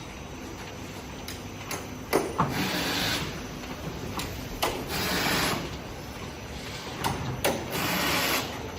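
Production workshop noise: scattered sharp clicks and knocks from tools and parts being handled, with three short hissing bursts a couple of seconds apart.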